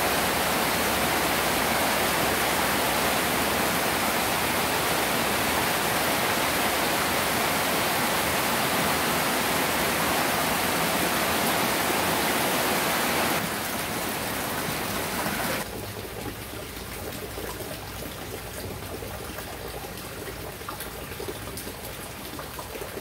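Heavy tropical rain pouring onto floodwater, a loud, dense, steady hiss. About 13 seconds in the sound drops off suddenly, and from about 16 seconds on only a much softer sound of light rain and water remains.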